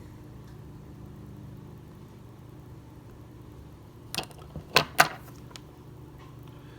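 Steady low mechanical hum in the background, with a few sharp clicks and knocks from handling the saw about four to five seconds in.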